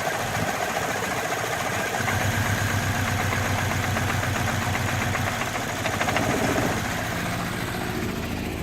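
Saab 9-3 2.0T's B207R turbocharged four-cylinder engine idling roughly, the persistent rough idle that the owner is trying to trace. Its low hum grows stronger about two seconds in and shifts again near the end.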